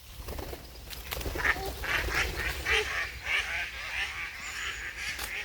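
A flock of ducks and other waterfowl calling together: many short, overlapping quacks and honks that start about a second in, over a low rumble.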